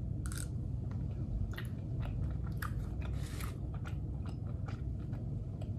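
Close-up chewing of a mouthful of soy-sauce chicken, with scattered soft clicks and crunches, over a steady low hum. The chicken is rather tough.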